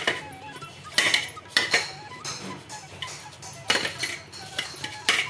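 Small kitchen knife scraping and chipping a block of soft bucket jaggery over a steel plate, with several sharp scraping strokes at uneven intervals. Faint background music plays underneath.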